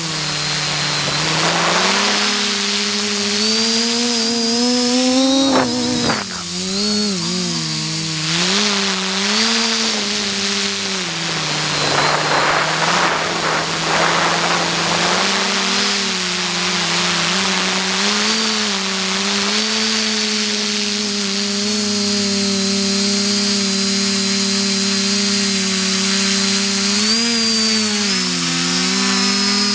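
XJ470 multirotor drone's electric motors and propellers buzzing in flight, heard from the camera it carries: a steady hum whose pitch dips and rises as the throttle changes. A rush of wind comes in about twelve seconds in.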